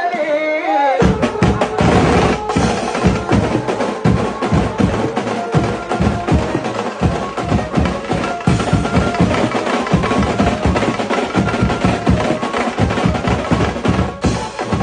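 Music with fast, dense drumming that starts about a second in, after a short sung phrase.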